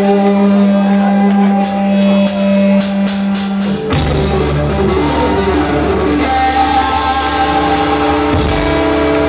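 Live rock band (electric guitar, bass and drum kit) playing loud through a club PA. It opens on a single held note over a few cymbal hits, and about four seconds in the full band comes in with bass and drums.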